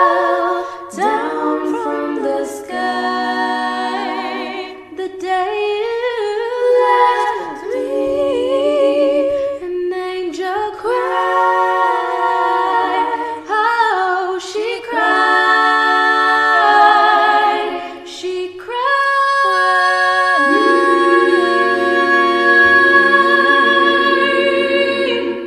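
A woman singing layered four-part a cappella harmony, several voice lines sounding together in held chords with vibrato and no instruments.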